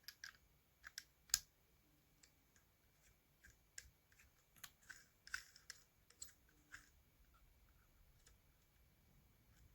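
Faint, scattered clicks and light taps of small parts being handled while a washer is fitted onto a vacuum cleaner motor's spindle, the sharpest click about a second and a half in.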